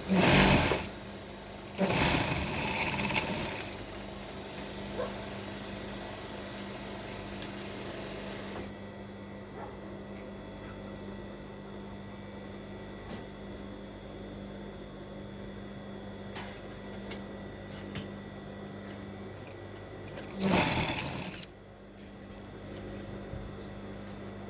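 Sewing machine run in short bursts: once at the start, again for about a second and a half around two seconds in, and once more near the end. A steady low hum runs between the bursts.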